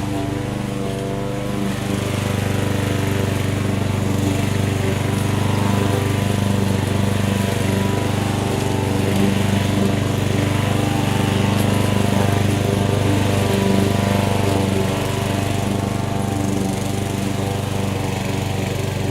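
Lawn mower running steadily while mowing grass. Its engine note holds even, a little louder through the middle stretch.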